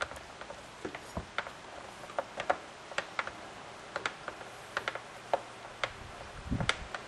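Irregular small clicks and taps of a screw being driven into the plastic housing of an Echo PB-200 leaf blower with a screwdriver, with a dull knock near the end.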